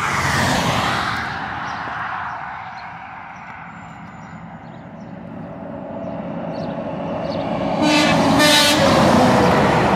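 Semi trucks passing close on a highway: one goes by at the start with its pitch falling, then a second approaches and sounds its air horn in a blast of about a second, some 8 seconds in, as it passes.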